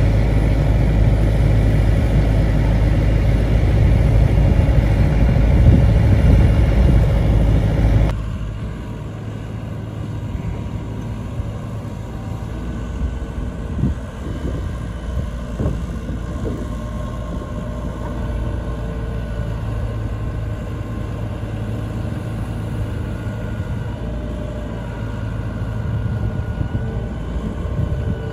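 Diesel engine of a Case/David Brown industrial loader tractor running steadily as the tractor is backed slowly off a flatbed trailer. The sound is loud for the first eight seconds, then drops sharply and carries on quieter, with a few light knocks near the middle.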